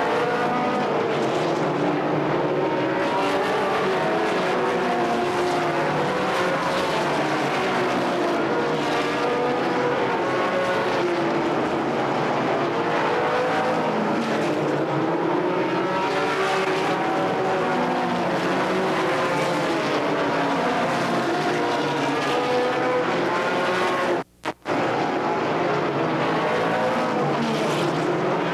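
ARCA stock cars' V8 engines running at racing speed on the oval, a steady pack of engine noise whose pitch rises and falls over and over as cars go by. The sound cuts out for about half a second near the end.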